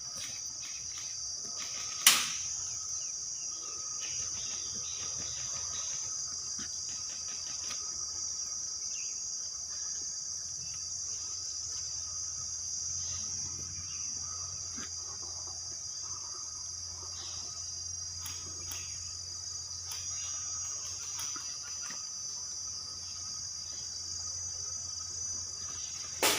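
Steady, high-pitched insect chirring, with a single sharp crack about two seconds in.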